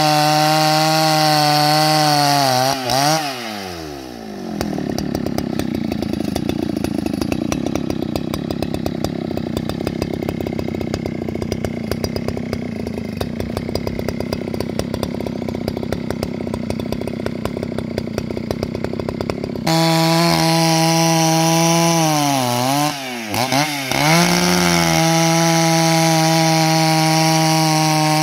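Husqvarna 281 XP two-stroke chainsaw ripping lengthwise through a squared log at full throttle. About three seconds in the pitch falls and the saw runs low and rough for some fifteen seconds. It then jumps back to a steady high-revving cut, and dips briefly once more a few seconds later.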